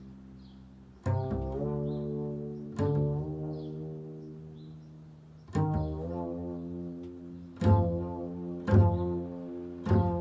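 Double bass played pizzicato: about six deep plucked notes. Each starts sharply and rings on, fading slowly. They come a second or two apart, and closer together near the end.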